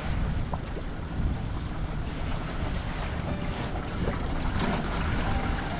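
Wind buffeting the microphone on an open boat at sea, a steady gusty rush with the sea washing around the hull.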